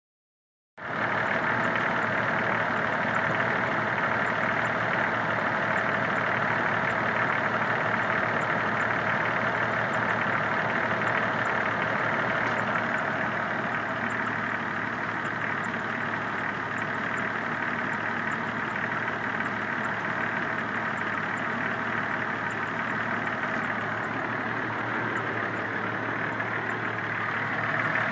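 1993 Jeep Cherokee engine running steadily, with a noise the owner suspects is engine knock.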